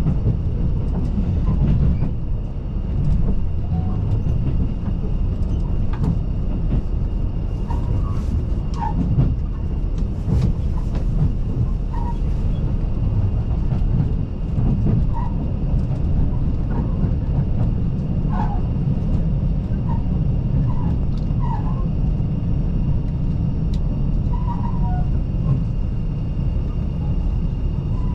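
Running noise of a KiHa 85 series diesel multiple unit heard on board: a steady low rumble with scattered clicks from the track and faint brief squeaks.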